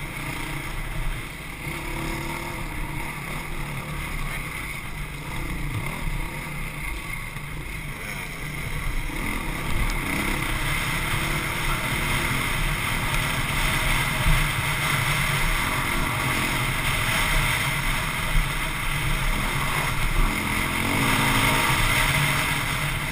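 Dirt bike engine running hard and changing pitch as the throttle rises and falls, with wind rushing over the microphone.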